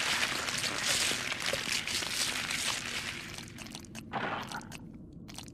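Anime sound effect for a large worm-like summoned creature stretching out to search: a dense crackling hiss that slowly fades over about four seconds, followed by a few faint scattered clicks.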